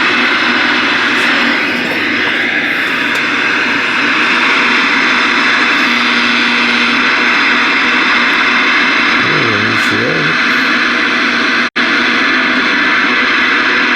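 Loud, steady receiver static hissing from a Ranger RCI-2995DXCF radio's speaker with the squelch open, as it listens to an empty channel. A faint voice wavers in the noise about two-thirds of the way in, and the hiss drops out for an instant shortly after.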